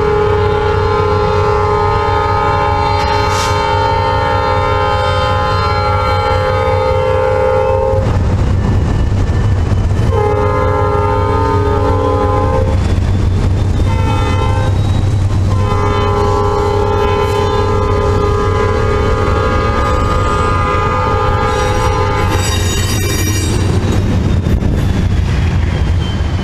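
Five-chime Nathan Airchime P5 horn on a Norfolk Southern GE C40-9 locomotive sounding the grade-crossing signal (long, short, short, long), over the steady low rumble of the passing diesel locomotives. After the last long blast ends, about three-quarters of the way through, the freight cars rumble past.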